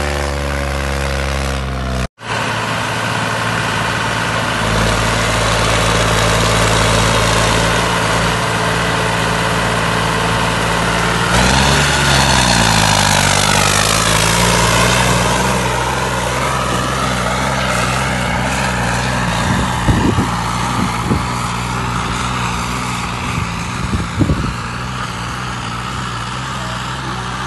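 Modified tractor's diesel engine running hard while it drags a disc harrow through dry soil; about twelve seconds in its pitch sags, then climbs back over the next few seconds. A few short knocks sound near the end.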